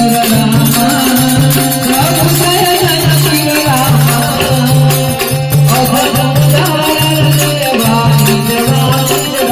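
Gujarati folk devotional aarti music: a melody over a regular drum beat, about one stroke every 0.8 s, with steady jingling rattle-type percussion.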